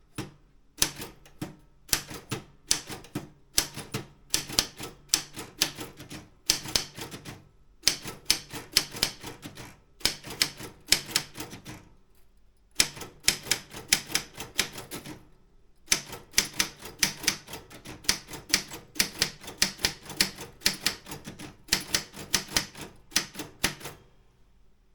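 Optima M16 typewriter being typed on: quick runs of key strikes, several a second, each a sharp clack, with short pauses about twelve and fifteen seconds in; the typing stops shortly before the end.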